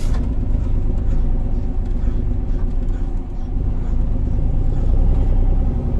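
Liebherr LTM 1055-3.1 mobile crane driving on a road test after a clutch replacement: its diesel engine and drivetrain give a steady low rumble heard from inside the cab, mixed with road rumble from a rough road. A single sharp click comes right at the start.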